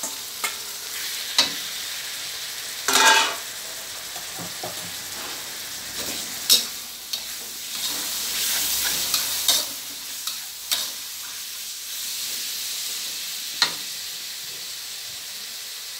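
Chicken giblets sizzling in hot oil in a metal wok while being stir-fried. A spatula knocks and scrapes against the wok every second or few, with the loudest, longer scrape about three seconds in.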